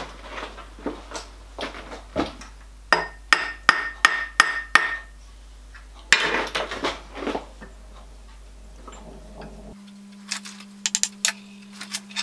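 Soft-faced mallet tapping a gunmetal boiler dome casting clamped on a milling machine table, knocking it into line while a dial test indicator checks it for square. A quick run of about six taps with a short ring, then more scattered light taps.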